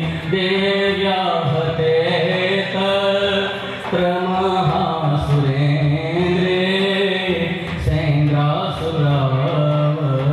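Devotional folk song for a stick dance: a voice singing a melody with long held notes over a steady low accompaniment.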